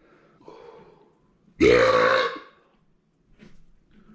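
A man's loud, low-pitched belch lasting under a second, about a second and a half in, after a fainter sound.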